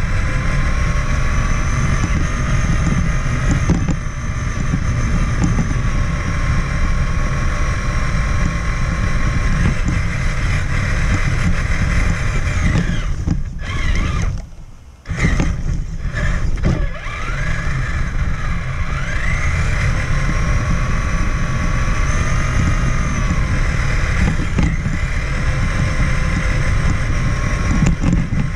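Traxxas Summit 1/10-scale RC truck's electric motor and gearbox whining as it drives, the pitch rising and falling with the throttle over a heavy rumble from the chassis and wheels. About halfway through the drive cuts out for a moment, then picks up again.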